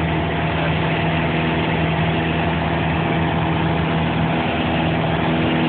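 Light aircraft's engine and propeller droning steadily, heard inside the cabin, with a constant pitch and a wash of cabin noise.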